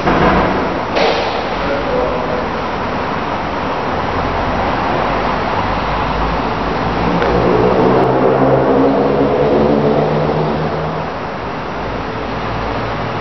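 Steady vehicle and road-traffic noise, with one engine growing louder and slowly rising in pitch around the middle, then fading.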